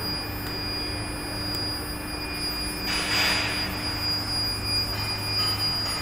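Induction furnace running: a steady high-pitched whine made of several fixed tones over a low hum, with a brief hiss swelling up about three seconds in.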